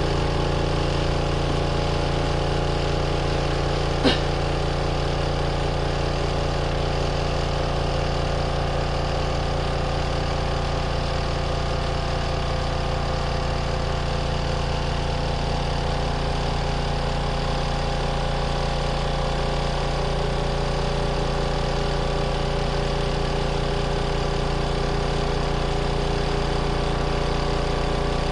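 Compact twin-tub washing machine's motor running steadily, an even hum with one sharp click about four seconds in.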